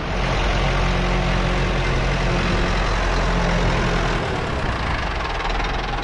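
Ford 7710 tractor's diesel engine running steadily.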